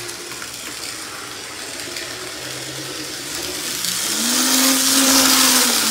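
Old Bachmann Burlington Northern F unit model locomotive's electric motor and wheels whirring along the track; about four seconds in its hum rises in pitch and gets louder as it is throttled up to full power.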